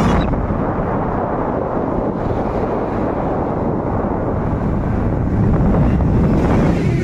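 Wind buffeting the microphone: a loud, steady rumble of rushing noise.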